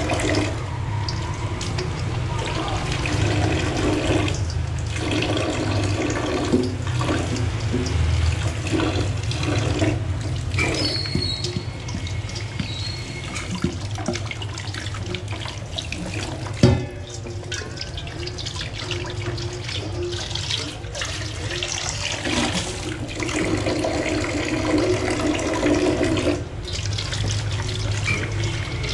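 Tap water running into a stainless steel sink and splashing off a black non-stick pan as it is rinsed and rubbed by hand. One sharp knock sounds a little past halfway.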